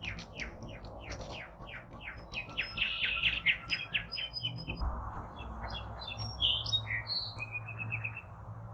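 Songbirds chirping and calling. A quick run of falling chirps, about four a second, gives way to a jumble of varied chirps and short whistles. A steady low background hiss comes in about halfway through.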